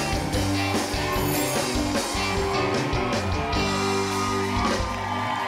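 Band music with guitar, steady bass notes and a regular drum beat; the bass and drums drop out near the end.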